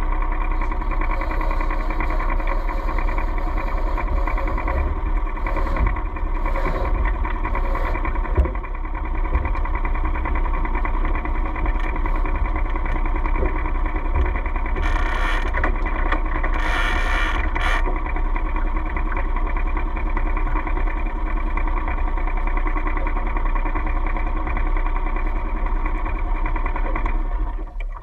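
Sailboat's outboard motor running steadily at a constant speed, then cutting off suddenly near the end.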